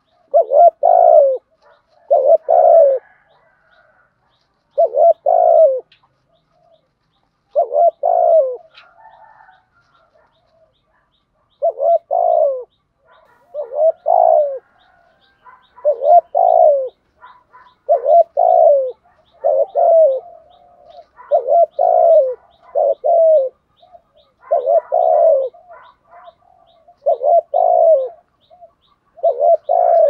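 Spotted dove cooing: its repeated song phrases of two or three deep coos come about every two seconds, with a short pause about a third of the way in.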